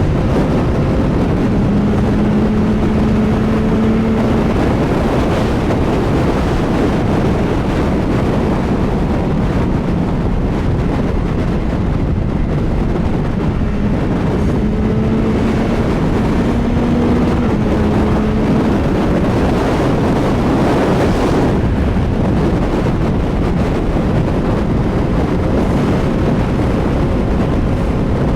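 CFMoto 675SR-R motorcycle's inline-triple engine running at highway speed, buried under heavy wind rush on the microphone. The engine's drone steps up slightly in pitch twice.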